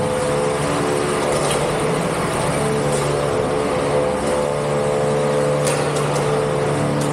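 Combat robots' electric motors whining steadily, several tones at once, with a few faint sharp knocks.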